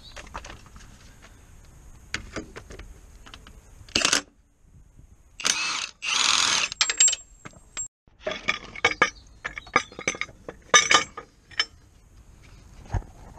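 Milwaukee M18 Fuel cordless impact wrench running in short bursts on a bolt, loudest in two bursts about five to seven seconds in. Then a run of short metallic clinks and taps as tools and parts are handled.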